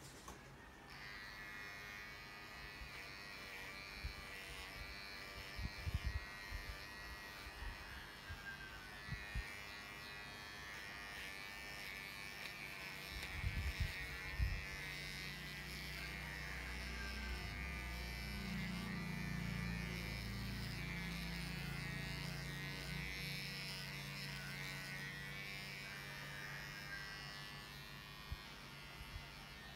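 Electric pet grooming clippers running with a steady buzz, switched on about a second in and off near the end. A few low thumps of handling come around six and fourteen seconds in.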